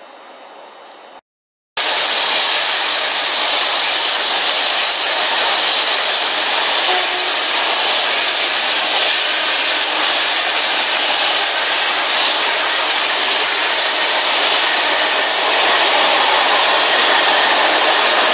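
Container freight train of flat wagons passing close by at speed: a loud, steady noise of wheels running on the rails and wagons rushing past. It starts suddenly after a short silence about a second and a half in.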